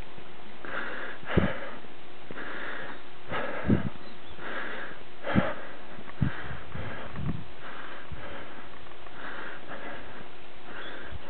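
Heavy, even breathing close to the microphone, a soft puff about once a second alternating in and out, with a few dull low thumps between, of someone walking after a climb.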